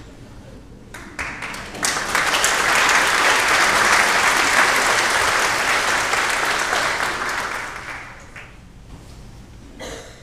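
Congregation applauding: the clapping starts about a second in, builds quickly, holds for several seconds and dies away a little after the seven-second mark.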